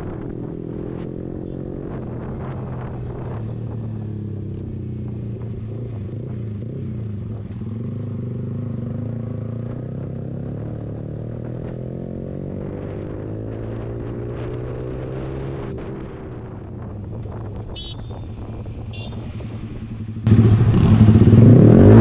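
Yamaha R15 V3's 155 cc single-cylinder engine running as the motorcycle cruises in third gear, its pitch rising and falling gently with the throttle. Near the end the sound suddenly turns much louder.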